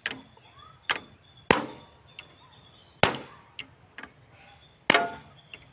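Hammer blows on a socket held against a valve spring retainer of a VST Shakti 130 DI power tiller's diesel engine, knocking the valve locks loose so the valve spring can come off. Five sharp metallic strikes, irregularly spaced one to two seconds apart.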